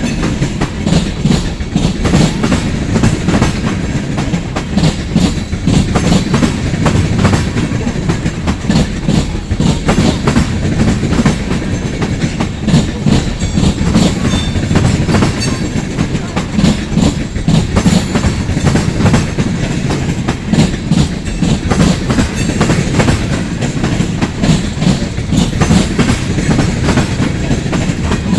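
Freight cars of a long freight train rolling past, with a steady rumble and dense, continuous clatter of wheels over rail joints.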